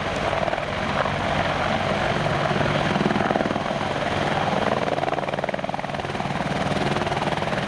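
British Army Apache attack helicopter hovering low: its main rotor beats rapidly and evenly over the steady drone of its twin Turbomeca turboshaft engines, swelling slightly about three seconds in.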